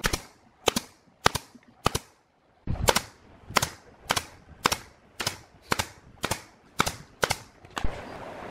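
Pneumatic nail gun firing nails into the edge of a plywood cabinet: about a dozen sharp shots, roughly two a second, with a pause of about a second after the fourth and the last shot near the end.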